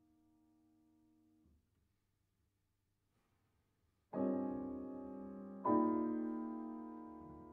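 Solo piano: a faint held chord dies away, then a pause of about two and a half seconds, then two loud chords struck about a second and a half apart, each left ringing and slowly fading.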